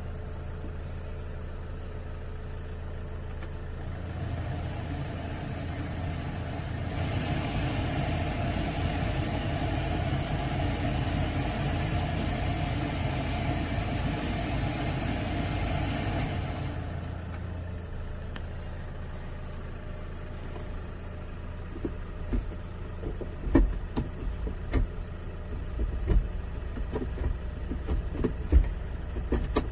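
Porter II truck's diesel engine idling, heard from inside the cab. For about ten seconds in the middle a louder rushing hiss starts and stops abruptly. Near the end come a series of knocks and clunks from the manual gear lever being moved.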